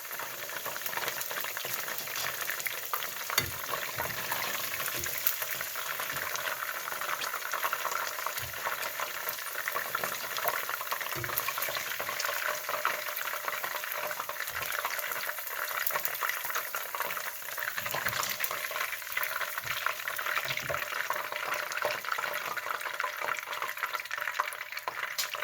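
Battered chicken pieces frying in hot oil in a skillet, a steady crackling sizzle: the first fry of a double fry. A few soft low knocks come through it now and then.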